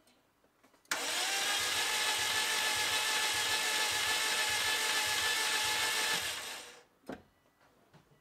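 Subaru EJ20 boxer engine cranking on its starter motor: a steady whine that rises slightly as it spins up, with even pulses about two and a half times a second. It is being cranked for a compression test on cylinder 3, and the gauge shows no compression. It stops after about six seconds and is followed by a single click.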